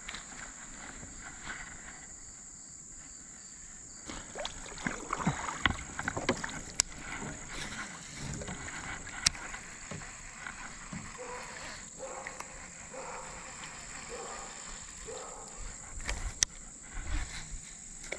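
Kayak hull knocks and water sloshing around a kayak, with a scatter of sharp clicks and knocks that start about four seconds in and pick up again near the end.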